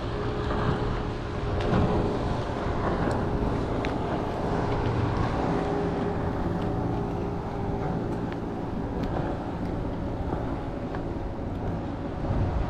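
A motorboat's engine running steadily past the kayak, a steady pitched hum heard over wind and water noise, with a few faint clicks.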